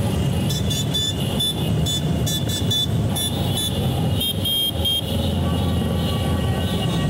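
Motorcycle engines running in a slow-moving parade, a steady low rumble. Over it come short, high-pitched horn toots in quick clusters during the first five seconds, then the rumble goes on alone.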